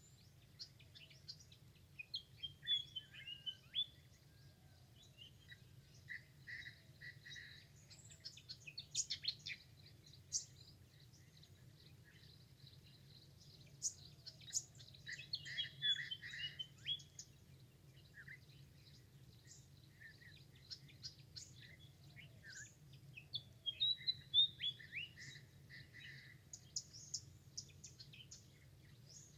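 Songbirds chirping and calling in short, quick phrases and trills, in bursts throughout, over a faint steady low hum.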